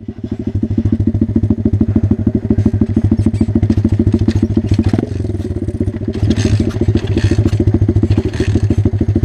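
125 cc pit bike single-cylinder engine idling steadily with an even, rapid putter of firing pulses, dipping a little in level about halfway through.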